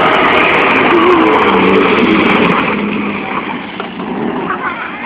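BMW 325's straight-six engine revving hard with rising and falling pitch as the car drifts past, then fading as it drives away after about two and a half seconds.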